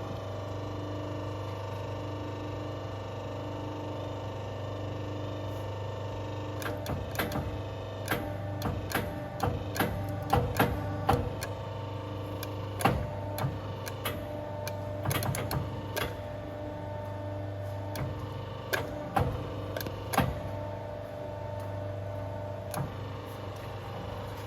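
Air spring crimping machine running with a steady hum while it crimps a steel ring onto an air spring bag. Many sharp, irregular clicks and knocks come in from about six seconds in and die away near the end.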